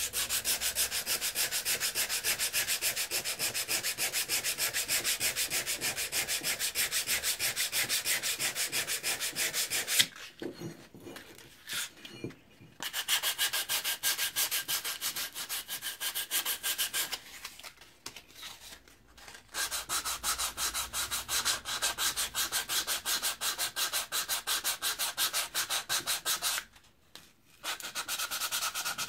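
Sandpaper worked by hand back and forth over the steel of an old Plumb axe head, scouring off rust: quick, even rasping strokes, about three a second. The strokes pause briefly three times.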